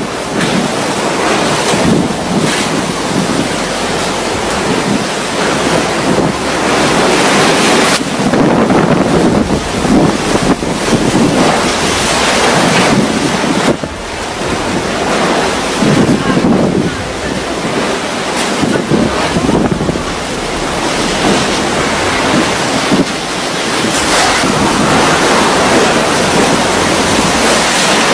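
Typhoon winds and driving rain battering roofs and trees, a continuous loud rush that swells and eases in gusts, with the wind buffeting the microphone.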